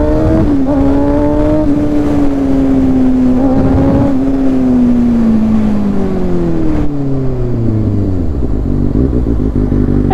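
Kawasaki Ninja ZX-6R inline-four engine running at high revs. About four seconds in, the note falls steadily as the revs drop, and it settles to a lower steady note near the end.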